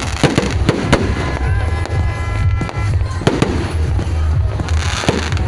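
Fireworks going off in rapid, irregular bangs over a continuous low booming rumble.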